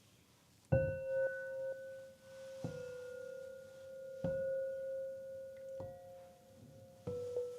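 Bell-like chime tones struck five times, about every one and a half seconds, each ringing on steadily until the next. They stay on much the same middle pitch, with a slightly higher note joining in after about six seconds.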